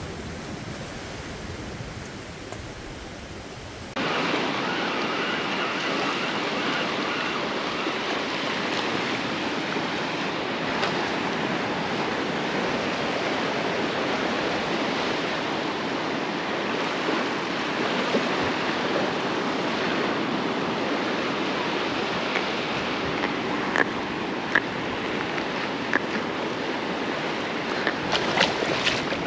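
Ocean surf breaking and washing up the beach, a steady rush of water that turns suddenly louder about four seconds in. A few sharp clicks come near the end.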